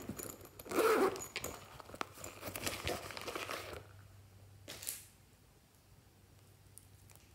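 Hands handling a silicone duck zip pouch and a small plastic bottle: crinkling and rasping for about three seconds, then one short scrape just before five seconds.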